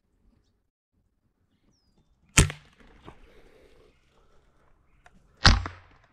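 Air rifle firing twice, about three seconds apart: two sharp cracks, each with a short tail, with faint clicks between them.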